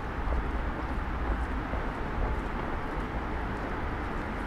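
Steady city street ambience: a low, even rumble of distant traffic.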